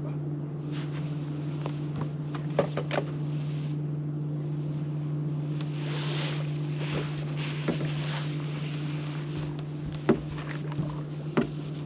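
A bass being fought at the side of a bass boat: a few sharp knocks on the boat's deck, the loudest about ten seconds in, and a brief splash of water about six seconds in, over a steady low hum.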